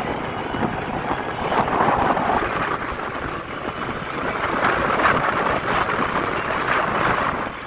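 Wind rushing over the microphone of a moving scooter, mixed with road and traffic noise, swelling a little in the second half.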